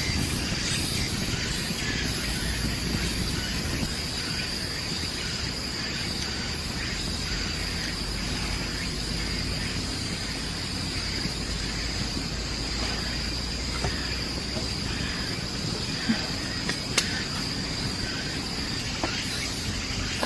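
Insects droning in one steady high note, over a low rumble of outdoor background noise, with a couple of sharp clicks near the end.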